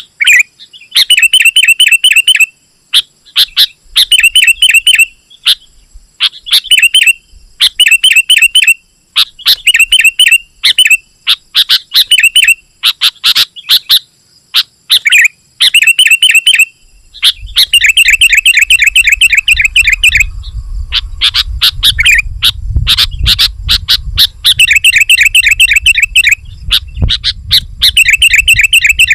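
Sooty-headed bulbul singing, phrase after phrase of fast chattering notes, each about a second long with short pauses between. A low rumble joins in from just past the middle.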